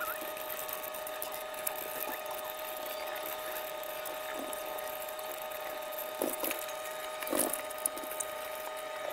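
A steady whining hum, with brief clinks and rattles of small metal Meccano parts being sorted by hand, twice near the end.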